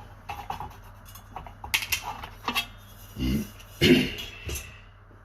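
Clicks, taps and knocks of the LED bar's parts being handled and worked loose on the bench, with two louder knocks a little over three and four seconds in, over a faint steady mains hum.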